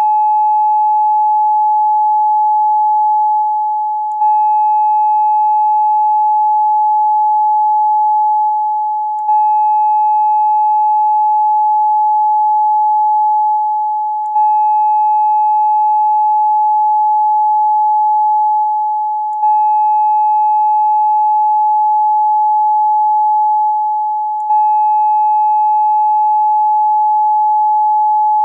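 Steady electronic 852 Hz tone, the sound-healing frequency associated with the third eye chakra. It repeats as a loop that restarts about every five seconds, dipping slightly just before each restart, with faint higher overtones.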